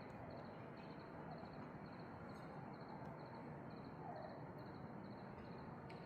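Faint background noise with a high, rapid chirping that repeats steadily throughout.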